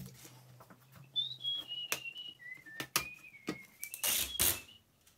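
Someone whistling a short tune of held notes that step downward, with scattered light clicks and knocks from objects handled on a table. Near the end comes a short, louder rustling scrape.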